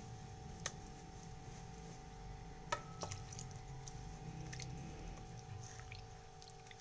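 Silicone spatula stirring a thick, wet batter in a ceramic bowl, giving soft squelching. Two sharp clicks come about a second in and again near three seconds.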